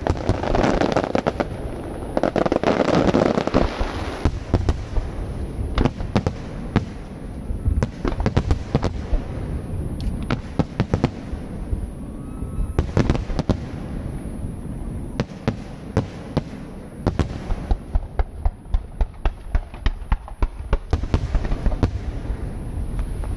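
Aerial fireworks shells bursting in a continuous barrage. A dense crackling rumble fills the first few seconds, then come many separate sharp bangs, including a quick run of evenly spaced bangs in the later part.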